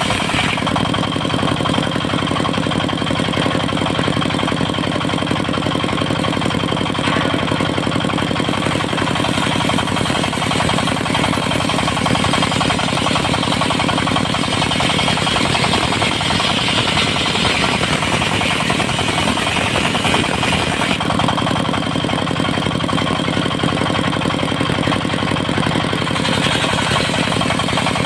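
The diesel engine of a portable circular sawmill running steadily with a fast, even knock. A higher whine from the saw swells about halfway through.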